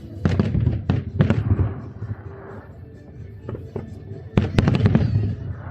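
Aerial fireworks shells bursting in two rapid volleys of sharp bangs and crackles, one just after the start and another about four and a half seconds in, with a low booming rumble between them.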